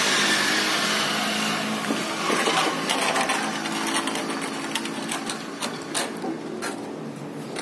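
A motor runs steadily and gradually fades away, while scattered sharp knocks and clatter of wooden timbers being handled come in from about two seconds in, with two stronger knocks near the end.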